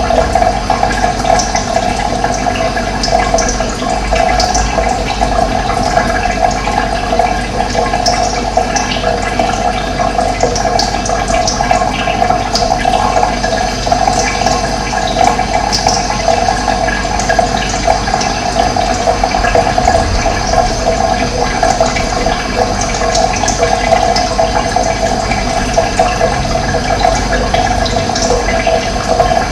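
Running water flowing in a steady, unbroken rush.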